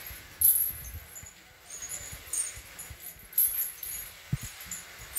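Chained Asian elephant handling and carrying palm fronds: the leaves rustle and its iron chains clink in short bursts, with a dull thud about four seconds in.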